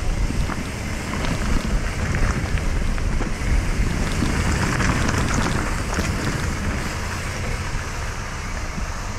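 Wind buffeting the microphone of a mountain bike running down a dirt trail, over the hum of the tyres, with scattered light clicks and rattles.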